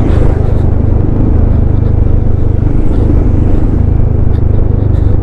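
Steady riding noise on a moving Yamaha XMAX 300 scooter: its single-cylinder engine, the road and rumbling wind blend into one low, even roar.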